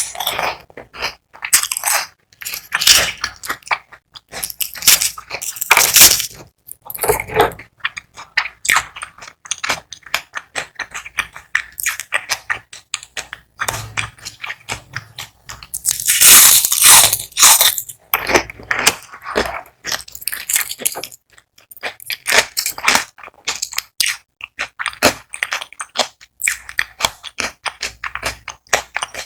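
Close-miked crunching and chewing of crispy battered onion rings: loud crisp bites followed by runs of crackling chews, with an especially long crunchy stretch about halfway through.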